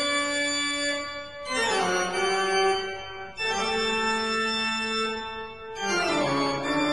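Organ music playing long held chords, four of them, each changing to the next after a second or two.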